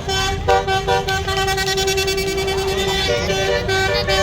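Basuri 'telolet' multi-tone musical air horn playing a tune: a run of short stepped notes, a long held chord in the middle, then short notes again.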